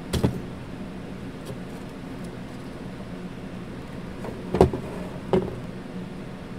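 Sharp clicks and knocks of the Sharp EL-160 calculator's parts being handled as it is taken apart: a double click right at the start, the loudest knock about four and a half seconds in, and one more just after, over a steady low hum.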